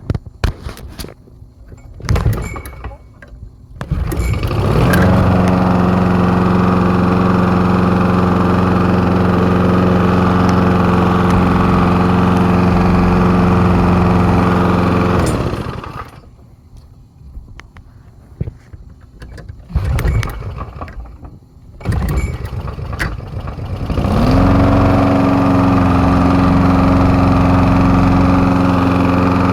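Walk-behind lawn mower's small engine being pull-started: a few short pulls, then it catches about four seconds in and runs steadily. It cuts out about halfway through, and after a couple more pulls it starts again and runs to the end.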